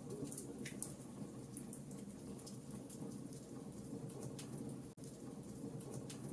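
Wood fire crackling in a fireplace: irregular sharp pops and crackles over a low steady rumble of the flames, with a split-second break in the sound about five seconds in.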